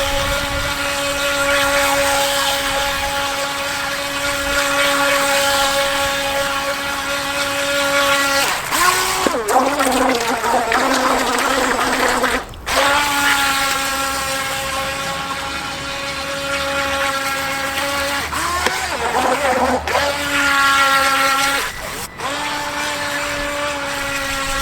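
An RC speed boat's electric motor whines at a steady high pitch. Several times the pitch sags and climbs again, about a third of the way in, again after about three-quarters, and once more just before the end, as the throttle is eased and reopened.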